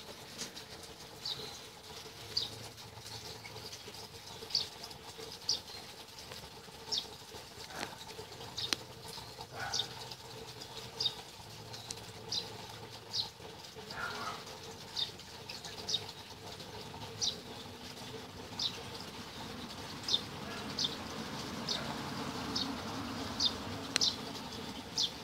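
A bird chirping a short, high note over and over, about once every second or so.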